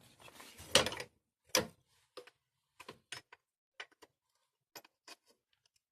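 Metal spanners clinking and clicking against each other as someone rummages through a set of wrenches; about a dozen short, irregular clinks, the loudest two within the first second and a half.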